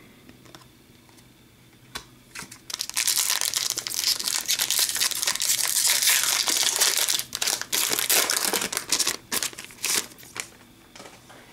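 Foil hockey card pack wrapper crinkling and tearing as it is opened by hand, starting about three seconds in and running for several seconds, with a few light taps before it.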